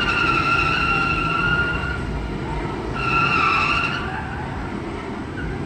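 Car tyres squealing during burnouts: one long squeal of about two seconds, then a shorter one about three seconds in, over a steady low rumble.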